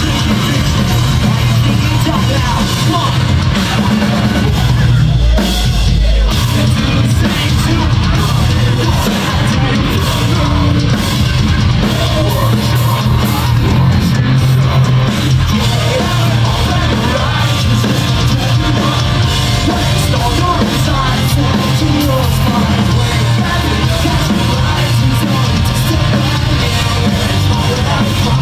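Live rock band playing loud: distorted electric guitars, bass and drum kit, with yelled and sung lead vocals.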